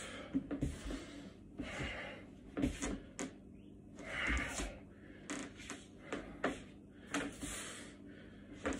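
A man's forceful hissing exhalations, about three in all, with scattered thumps and scuffs of booted feet on a hard floor as he steps through martial-arts moves.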